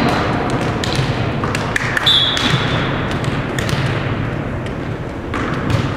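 Echoing gym sounds: scattered sharp smacks of balls bouncing on a hardwood court floor, and a short sneaker squeak about two seconds in.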